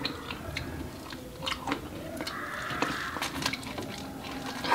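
Close-up biting and chewing of a cob of corn from a seafood boil, heard as scattered small wet clicks and crunches.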